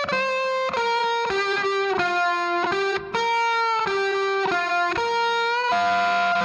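Music: a solo electric guitar plays a single-note melody through effects, changing note every fraction of a second with some slides between pitches, with no drums or bass. The line breaks off briefly about three seconds in.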